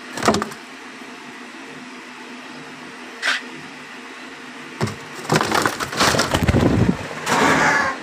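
Knocks and scraping in a wooden box cage as a hand clears droppings and litter from its floor. There is a sharp knock near the start, a short sharp sound about three seconds in, then a couple of seconds of dense scraping and rattling. A last clatter comes near the end as the wire-mesh cage door is handled.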